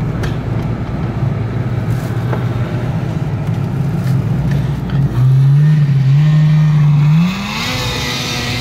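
A vehicle engine running, louder for about two seconds past the middle, then climbing in pitch and settling on a higher, steady note.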